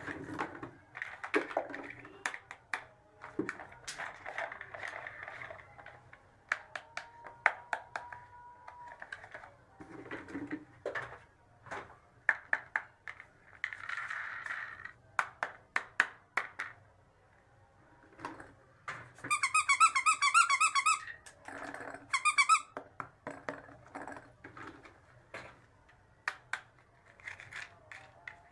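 Small plastic toy pieces being handled, with many light clicks and taps. Nearly twenty seconds in, a warbling electronic tone plays for about two seconds, then again briefly.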